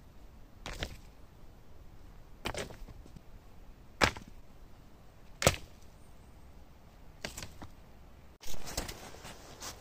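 Sharp wooden knocks and cracks from a long thin spruce pole being worked by hand, five strikes about a second and a half apart. Near the end a quicker clatter of sticks follows.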